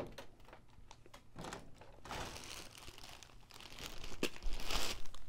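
Plastic packaging crinkling and rustling as a toy vehicle is pulled out of its wrapping, loudest near the end, with a short click just before.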